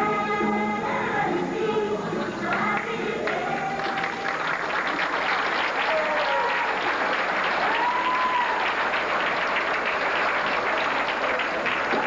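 Singing with music ends about three seconds in, and an audience breaks into steady applause with scattered cheers.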